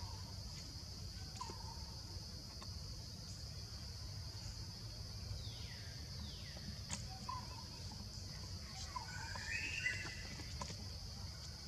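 Forest ambience: a steady high insect drone over a low rumble, with scattered short bird calls, two falling whistles about halfway through and a warbling call near the end.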